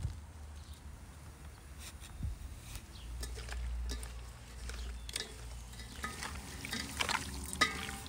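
Hands mixing raw beef liver and fat chunks in an enamel bowl: irregular wet squelches and small clicks, busier in the second half.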